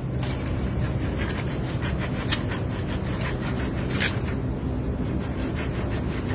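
A steady low hum, with rubbing and scraping from hands working a tape against a pipe and handling a kitten; two sharper scrapes stand out about two and four seconds in.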